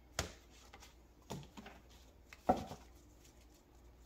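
A handful of short sharp taps and knocks of tarot cards being handled and set down on a tabletop, the loudest about two and a half seconds in.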